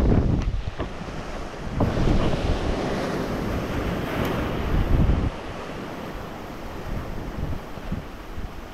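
Sea waves breaking and washing in, a louder surge swelling about two seconds in and easing off about five seconds in, with wind buffeting the microphone.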